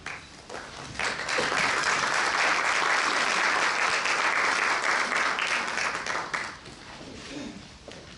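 Audience applauding, starting about a second in and dying away after about six seconds.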